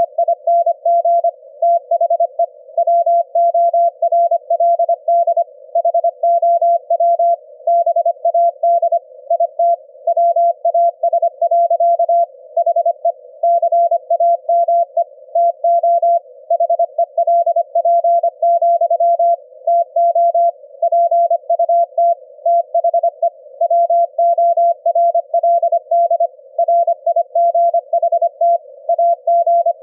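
Morse code at 25 words per minute, heard as a mid-pitched beep keyed on and off in short dits and longer dahs with gaps between characters, over a faint band of receiver hiss. It is a 25 Hz ELF-band CW signal demodulated into an audible tone by the Quisk SDR receiver.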